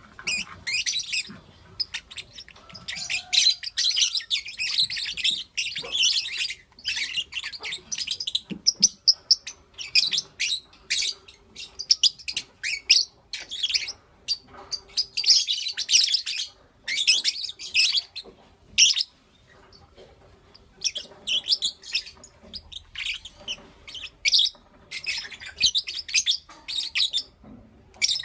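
Lovebirds chirping and calling in rapid high-pitched runs of shrill chirps, broken by short pauses, among them a pause of about two seconds near the middle.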